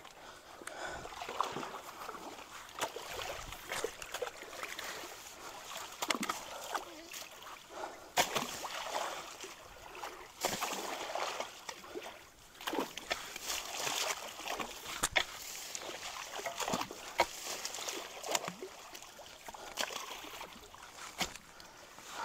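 Creek water splashing and sloshing as long-handled tools are worked through a pile of sticks and brush clogging a culvert, with irregular sharp knocks and cracks.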